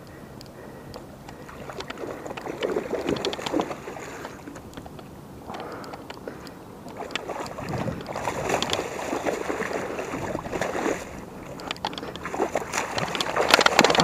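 A northern pike thrashing and splashing in shallow water at the river's edge as it is hauled in and dragged up onto the muddy bank by hand. The splashing comes in irregular bouts, heaviest near the end.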